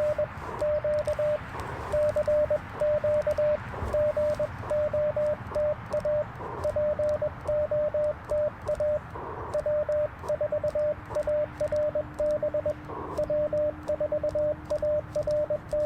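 Morse code (CW) from an Icom IC-705 transceiver: a single medium-pitched tone keyed in quick dots and dashes, one character after another.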